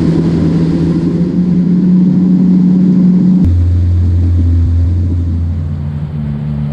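Yamaha WaveRunner FX Cruiser HO's 1.8-litre four-cylinder four-stroke engine running under way on the water. About halfway through, its note drops suddenly to a lower pitch, and it picks up a little near the end.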